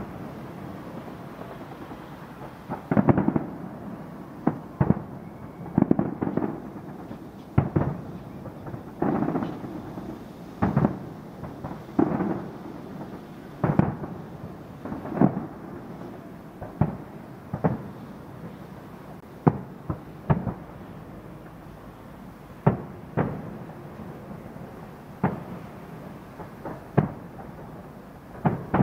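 Aerial fireworks shells bursting during a display: loud, sharp bangs at irregular intervals of about one to two seconds, each trailing off in an echo. The bangs begin about three seconds in, after a quieter stretch.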